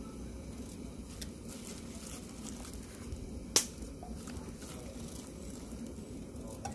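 Food-preparation handling sounds: wet whole fish being lifted by a plastic-gloved hand and dropped into a simmering stew pot while squash is peeled with a knife, with faint clicks over a low steady rumble and one sharp click about three and a half seconds in.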